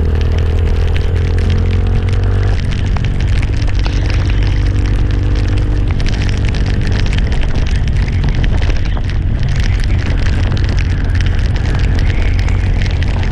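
Motorcycle riding at speed: engine running under heavy wind buffeting on the microphone, a crackling rush of noise with a deep rumble. The engine's steady tone drops out about two and a half seconds in, leaving mostly wind noise.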